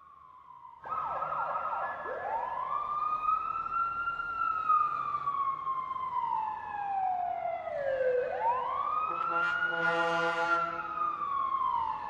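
Fire engine siren wailing: two slow cycles, each climbing quickly to a high pitch and then sliding slowly down, the second starting about eight seconds in.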